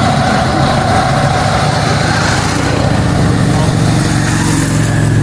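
Cruiser motorcycle engine running at low speed as the bike rides past, a steady low engine hum that grows louder near the end.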